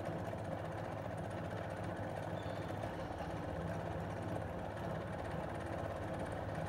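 AC servo motor on a lab speed-torque trainer running with a steady mechanical hum while its control voltage is turned up, taking it from about 900 to 1000 rpm.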